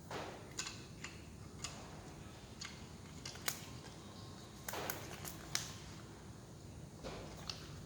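Scattered small clicks and light knocks of hard plastic and metal parts being handled, set down and fitted together on a bench during disassembly of a 12 V cordless drill/screwdriver, with a few short rustles in between.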